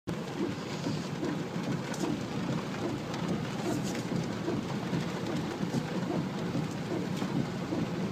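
Steady rush of muddy flash-flood water pouring across a desert road around the vehicle.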